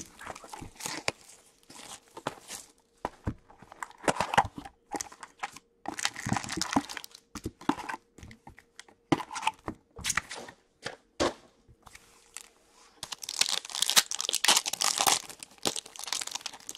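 Cardboard hobby box of SP Authentic hockey cards being opened and its foil packs handled, with scattered clicks and rustles. Near the end a foil card pack crinkles and tears open.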